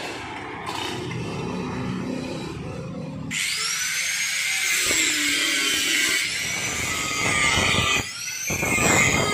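Small angle grinder starting with a sudden high whine about a third of the way in, its pitch sagging and rising as the disc is worked against the rusted steel scooter body. Before it, low knocks and handling of the metal body parts.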